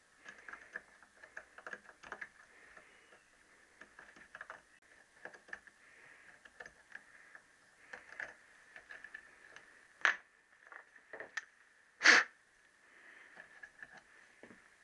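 Drill bit turned by hand as a reamer inside the small-end eye of a Triumph T120R connecting rod held in a vise: faint, irregular scraping and clicking as the bit cuts the bush. Two sharper knocks come about ten and twelve seconds in.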